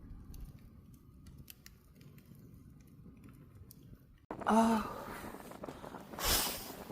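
Wood fire crackling: sparse sharp pops over a low rumble. About two-thirds of the way through it cuts abruptly to a brief voice, followed near the end by a short, loud rush of noise.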